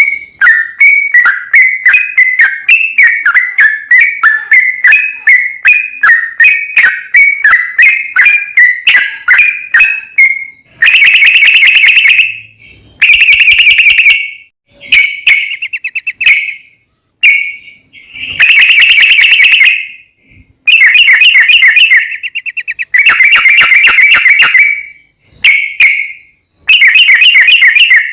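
Recorded yellow-vented bulbul (trucukan) song played very loud. For about the first ten seconds it gives a quick run of repeated chirping notes, about three a second. Then come long, dense song phrases of a second or two each, with short gaps between them, sounding harsh and distorted from clipping.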